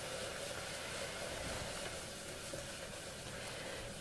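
A butter-and-flour roux in a pot sizzling with a steady soft hiss as beef broth is whisked into it.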